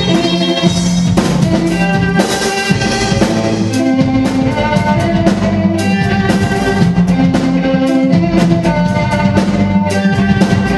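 Symphony orchestra with a rock drum kit playing a rock song arrangement: sustained string lines over a steady drum beat.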